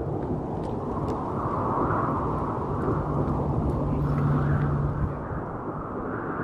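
Steady outdoor rumble of a city waterfront, like distant traffic, with a low engine hum for about three seconds in the middle.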